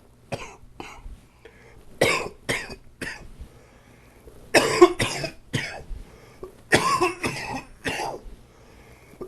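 A man coughing from a chest cold, in four fits of two or three sharp coughs each with short pauses between.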